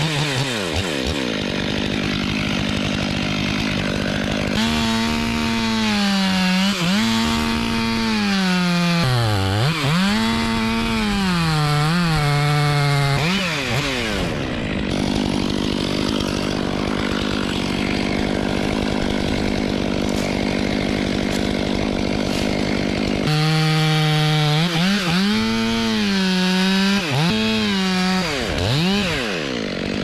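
Stihl two-stroke chainsaw cutting through a eucalyptus stem. Its engine pitch dips and recovers again and again as the chain bites into the wood, from about five seconds in to thirteen and again from about 23 seconds on. In between it runs more evenly.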